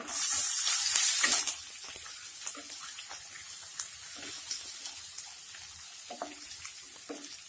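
Ginger-garlic paste frying in hot oil with peanuts and coconut slices in a kadhai: a loud sizzle for about the first second and a half, then a steady, quieter sizzle. Light scraping of a wooden spatula stirring the mixture can be heard.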